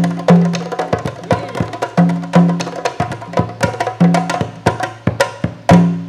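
Drum ensemble playing a fast, busy rhythm of sharp strokes, with a deep booming drum tone landing in pairs about every two seconds. A final loud stroke near the end closes the piece and the drumming stops.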